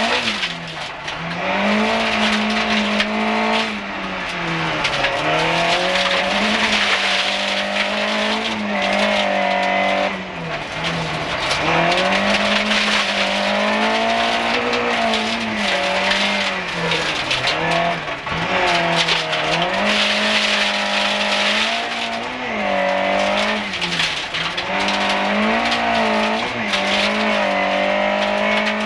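Group H rally car's engine heard from inside the cockpit, driven hard on a gravel stage: the engine note climbs and drops sharply with each gear change every couple of seconds, over a steady hiss of gravel and road noise.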